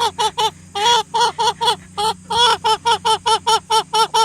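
Chicken calling in a fast, even series of short pitched notes, about five a second, with two brief pauses in the first two seconds.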